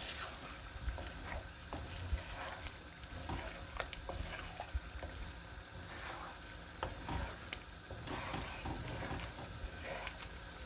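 Wooden spatula stirring and scraping through a wet potato-and-egg curry in a non-stick frying pan on high heat, with irregular clicks and scrapes against the pan over a faint steady sizzle.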